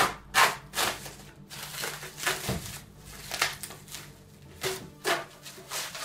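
Plastic bag wrapping being pulled and torn open by hand: a string of irregular crinkling and ripping rustles.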